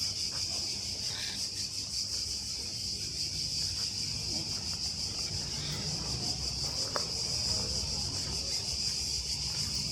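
Cicadas singing in a steady, high-pitched chorus, with a low rumble beneath.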